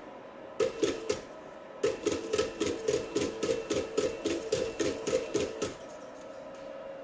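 Robot arm's servo motors buzzing in quick short pulses, about five a second, as the arm steps through its moves. A short burst comes first, then a longer run of pulses. After the run stops a faint steady motor hum stays.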